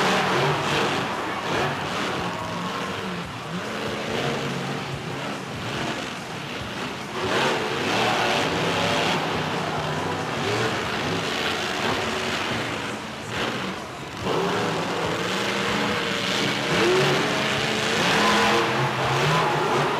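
Monster truck engine running loud, revving up and down in repeated surges.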